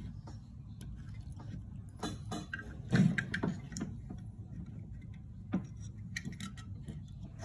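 Small clicks and taps from a screwdriver and a plastic screw terminal block being worked on a step-down transformer's plastic enclosure, loudest in a cluster about three seconds in, over a low steady hum.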